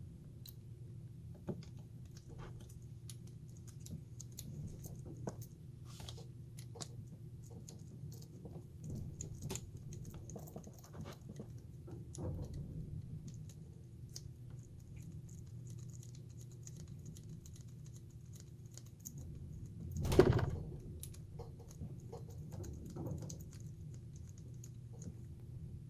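Light, scattered clicks and taps from handling a fishing reel and its packaging, over a steady low hum, with one louder knock about twenty seconds in.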